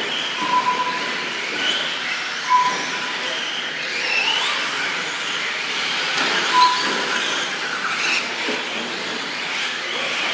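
Radio-controlled 4x4 short-course trucks racing on a dirt track: a steady motor-and-tyre whine that rises and falls as the trucks speed up and pass. Short steady electronic beeps come through it a few times.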